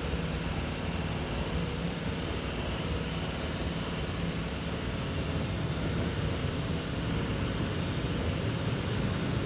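The 2021 Infiniti QX80's 5.6-litre V8 running steadily, with an even rushing noise over it.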